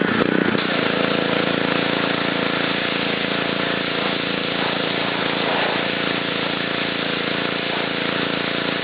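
Gas pressure washer with a Honda 5 hp engine running steadily, with a constant hiss of the water spray over the engine note.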